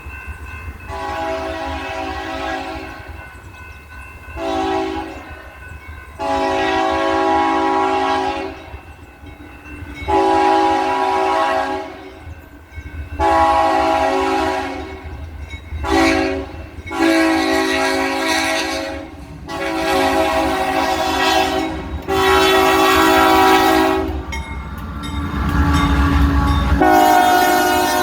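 Diesel locomotive air horn sounding a long salute of about ten blasts, mostly one to three seconds long with a few short ones in between. A steady low rumble of the passing train lies under it and swells near the end.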